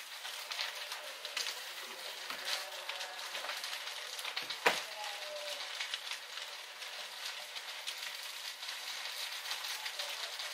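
Small wooden shed burning: the fire crackles and hisses steadily, with one loud sharp crack about halfway through.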